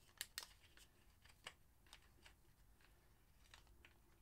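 Faint, scattered clicks and light rattles of bolts being fitted by hand into a motorcycle's plastic rear tail unit, with two sharper clicks close together just after the start.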